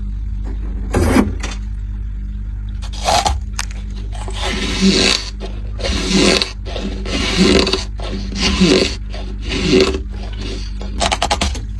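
Squeaky ice being bitten and chewed close to the microphone: a run of squeaking crunches, about one every second or so, over a steady low hum.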